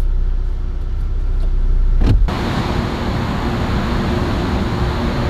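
Low rumble inside a car for about two seconds, ending in a short knock, then a sudden change to steady outdoor background noise, an even hiss-like hum.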